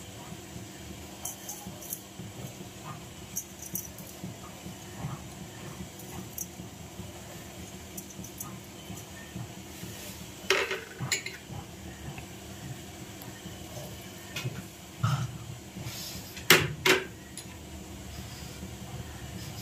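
Small bowls clinking and knocking against a stainless steel mixing bowl as ingredients are tipped in, with scattered light clicks and a few louder clinks about halfway through and again near the end.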